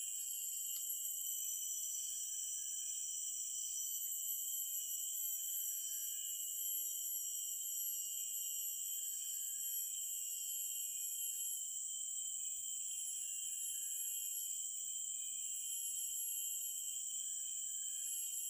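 Chorus of tropical forest insects: steady high-pitched buzzing at several pitches at once, with some thinner tones fading in and out every few seconds.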